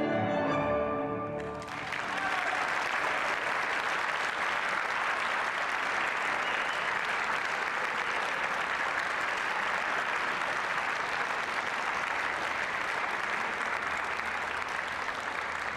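Tango music ends on a final note about a second and a half in, and an audience then applauds steadily.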